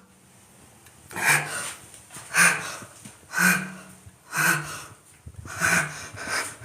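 A man breathing heavily: five loud, partly voiced breaths about a second apart.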